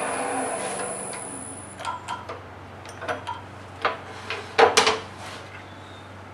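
Wood lathe running with a cut on the walnut tenon, its noise and high whine dying away over the first two seconds, then a series of light clicks and knocks, the loudest just before the five-second mark, as the brass coupling nut is tried on the tenon for fit. A steady low hum runs underneath.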